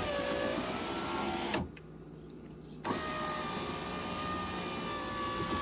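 Ford F-250 driver's power window motor running, stopping with a clunk about a second and a half in, then starting again a little over a second later with a steady whine. It is the erratic window the owner is chasing through the switch and relay, which doesn't want to work right.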